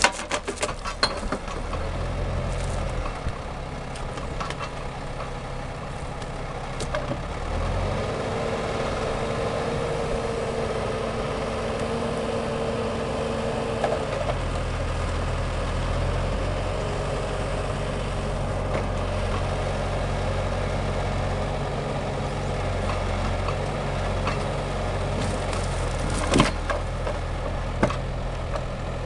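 Valtra forestry tractor's diesel engine running steadily under crane work, its note shifting as the hydraulic crane is worked, with a steady whine that changes pitch partway through. A few sharp knocks of logs being handled come in the first couple of seconds, and two more near the end as logs land on the trailer.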